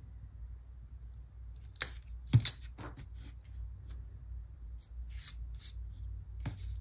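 Paper and stickers being handled on a planner page: a few sharp taps and clicks about two seconds in, then short rustles, over a low steady hum.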